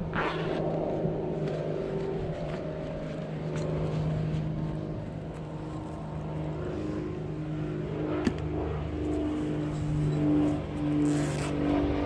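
Engine drone of a propeller airplane flying over: a steady low hum that swells near the end. A single sharp click about eight seconds in.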